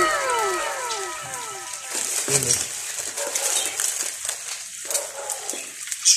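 Sisig with egg sizzling and crackling on a hot sizzling plate over a gas flame, a steady spitting hiss. During the first second or so, a few falling yelps from a distant dog overlap and fade.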